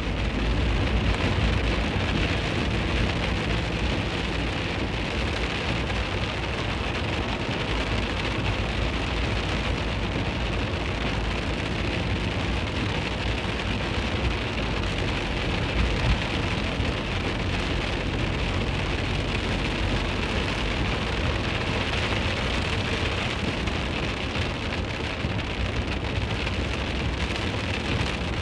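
Steady rain on a moving camper van's windscreen and body, heard from inside the cab over a low rumble of the van driving on a wet road. A brief louder knock comes about halfway through.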